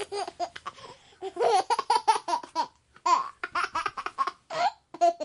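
Baby boy giggling and laughing in quick runs of short breathy bursts, with a brief pause about three seconds in before another run.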